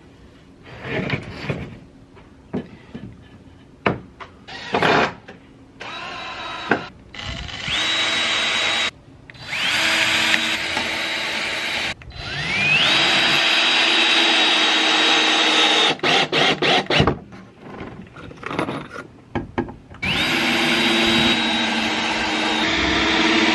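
Power drill driving screws into wood, in several runs: the motor winds up to a steady whine, runs a second or a few, and stops, four times, the longest about three seconds. Scattered knocks and clatter of the parts and tool being handled come before the first run.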